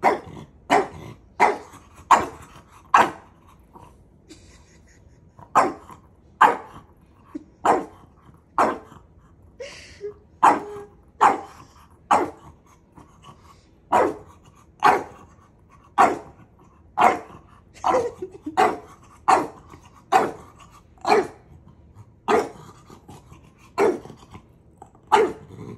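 French bulldog barking over and over, one short bark roughly every 0.8 seconds, with a brief pause about three seconds in. It is play-invitation barking, given from a play bow at a dog that won't join in.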